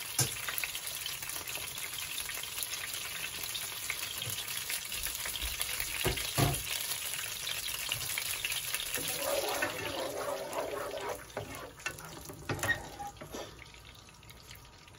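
Food sizzling in hot oil in a frying pan, with a few knocks of a utensil against the pan. The sizzle fades about eleven seconds in.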